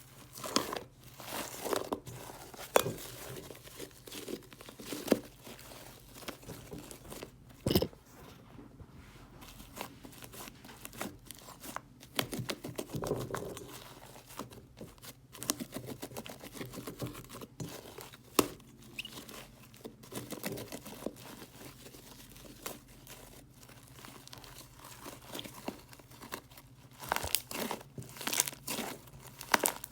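Homemade fluffy slime being stretched, folded and squeezed by hand, with irregular wet crackles, pops and squelches, some louder than others.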